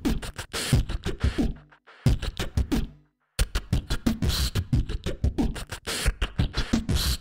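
Background music: a track with a fast, hard percussive beat that cuts out briefly twice, about two and three seconds in.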